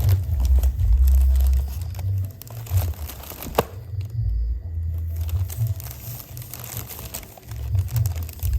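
Plastic bag crinkling and rustling irregularly as a cat moves around inside it, with heavy low bumps and one sharp click about three and a half seconds in.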